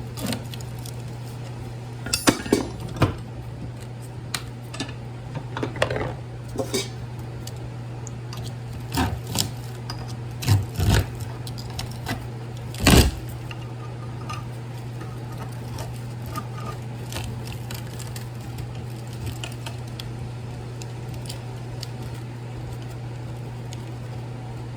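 Steel pry bar knocking and clinking against a transformer's steel core while breaking out the plastic winding bobbin: a series of sharp metallic knocks over the first dozen seconds, the loudest about 13 seconds in, then only a few light ticks.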